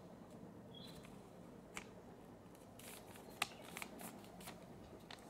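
Faint rustling and crinkling of a sheet of lined notebook paper being folded into a paper airplane, with a handful of short sharp paper clicks as the creases are pressed, the sharpest a little past the middle.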